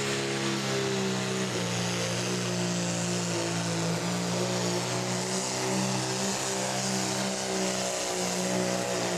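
Turbocharged diesel engine of a limited pro stock pulling tractor running flat out under full load as it drags a weight-transfer sled, a loud, steady drone holding nearly constant pitch.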